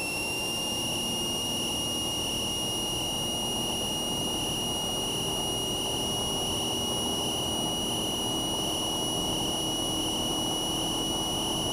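Cessna 172's engine and propeller at full takeoff power during a touch-and-go takeoff roll and lift-off, heard in the cockpit as a steady engine roar with a high whine.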